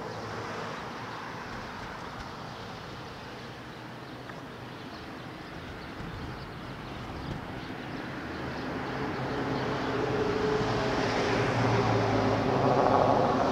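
A motor vehicle on the street approaching, its engine hum and road noise growing steadily louder through the second half and loudest near the end.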